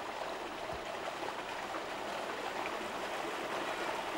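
Shallow stream flowing over rocks: a steady, even rush of water.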